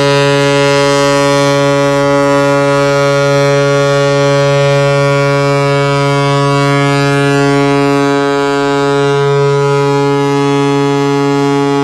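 Ship's horn on the container ship Songa Iridium sounding one long, unbroken, deep blast. A continuous horn blast like this is a distress or danger warning, here from a ship drifting ashore after a mechanical failure.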